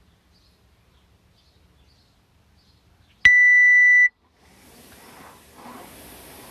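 A single high electronic beep, a little under a second long, from a workout interval timer, the signal for a round to start. About a second later a rushing, hissing noise sets in and grows louder.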